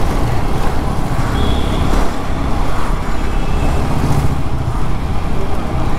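Honda Dio scooter riding through traffic: steady engine and road noise with low wind rumble on the microphone. A short high-pitched tone is heard about a second and a half in.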